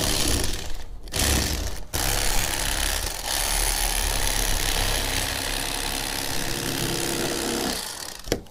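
Electric fillet knife running as it cuts a fillet off a sucker fish. It drops out briefly twice in the first two seconds, runs steadily after that, and is switched off near the end.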